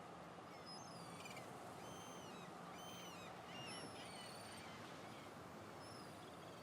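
Faint background ambience of small birds chirping: many short, high chirps over a steady soft hiss.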